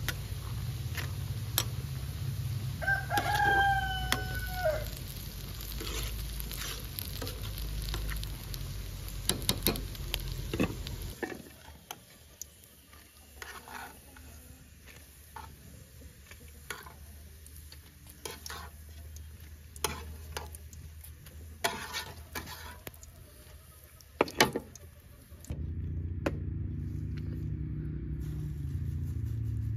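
A rooster crows once, about three seconds in, over a low rumble. Later come sharp clinks of a metal spoon against a frying pan and faint sizzling of oil as herb patties fry; the low rumble returns near the end.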